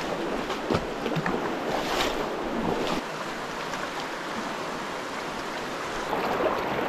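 Sloshing steps wading through a shallow, flowing river, with a few sharp splashes in the first three seconds over the steady rush of the water.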